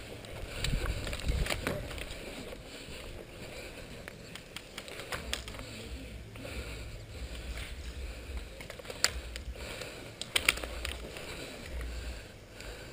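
Movement noise of an airsoft player walking through grass, picked up by a head-mounted camera: an uneven low rumble with scattered sharp clicks, the loudest about nine and ten and a half seconds in.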